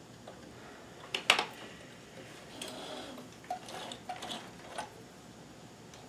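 Light clicks and taps of small parts being handled at a sewing machine: a sharp double click about a second in, a brief rustle, then a few softer clicks.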